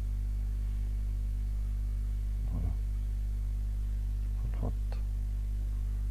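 Steady low electrical mains hum from the recording setup. Two brief, quiet voice murmurs come about two and a half and four and a half seconds in.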